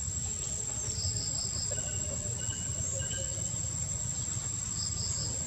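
Outdoor insect chorus: a steady, high-pitched insect trill, with two short runs of about four quick chirps, one about a second in and one near the end, over a low rumble.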